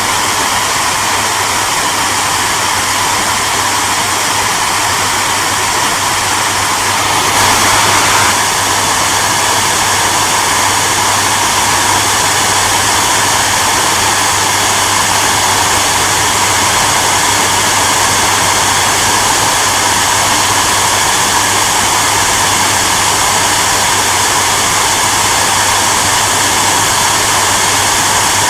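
Hair dryer running continuously: a steady rushing hiss of blown air over a low electric-motor hum. About seven seconds in it briefly gets a little louder for about a second, then settles back to the same even sound.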